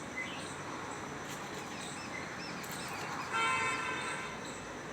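Outdoor ambience with faint bird chirps, and a short pitched call a little over three seconds in.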